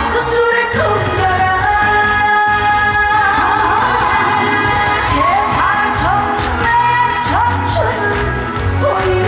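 A woman singing a trot song live over loud backing music with a steady beat, holding long notes with vibrato and sliding up into others.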